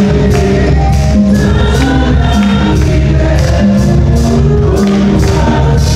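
Church choir singing a gospel song over a steady beat, with percussion striking about twice a second.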